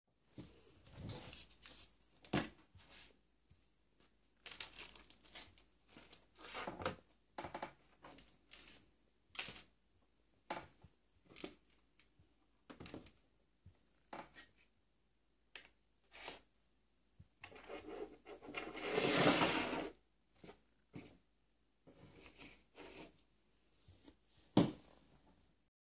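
Handling noises on a wooden workbench: paper and plastic packaging rustling and crinkling, with light knocks as parts and wires are picked up and set down. About three-quarters of the way through comes a louder crinkling or tearing of packaging lasting about two seconds, and near the end a sharp knock as something is put down on the bench.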